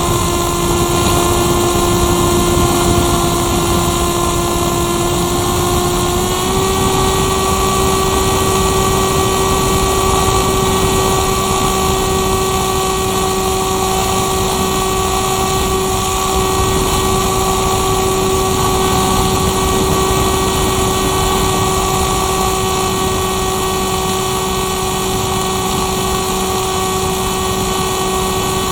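Motor and propeller of an RC motor glider running steadily, heard from its onboard camera with airflow noise underneath. The pitch steps up slightly about six seconds in.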